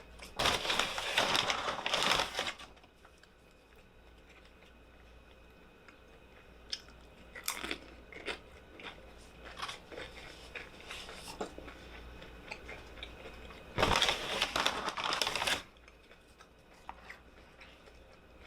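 A person eating a Chipotle burrito bowl close to the microphone: chewing with small clicks, and two loud noisy bursts of about two seconds each, one near the start and one about three-quarters through.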